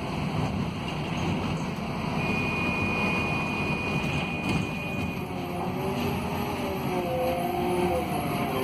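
Scania DC09 diesel engine of a Scania K280UB city bus running under load as the bus drives uphill, heard from inside the passenger cabin along with road noise. A thin high whine sounds for about three seconds in the middle.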